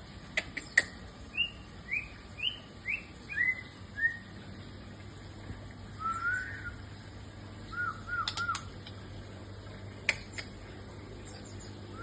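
A bird chirping: a run of about six short chirps, each a little lower than the last, then softer, lower chirps with a few quick ones together. Several sharp clicks are heard among them.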